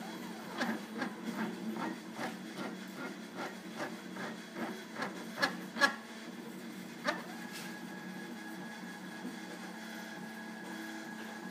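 Stepper motors driving a small CNC mill's X–Y table, running with a steady whine. For about the first six seconds there is a string of clicks, about two or three a second; after one more click about seven seconds in, a steady high tone sits over the whine.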